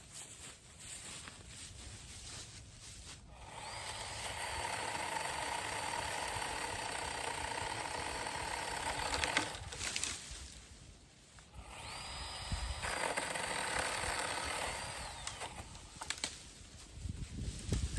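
Hart chainsaw cutting cedar branches in two runs, one from about four to nine seconds in and another from about twelve to fifteen seconds in. Its motor whine stays steady while cutting and drops as each run stops.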